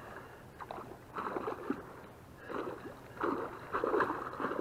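A hooked pike thrashing at the surface of the water, three or four bursts of splashing about a second apart.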